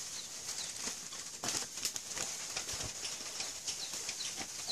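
Outdoor ambience: small birds chirping over a steady high hiss, with the crackle of a wood fire burning under a pot of water and a few louder knocks around the middle.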